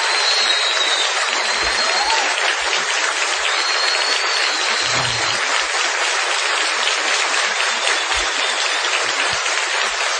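Concert audience applauding steadily at the end of a song.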